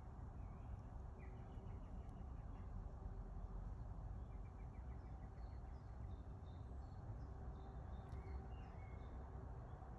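Faint outdoor garden ambience: small birds singing in the distance, short chirps and quick trills scattered through, over a low steady rumble.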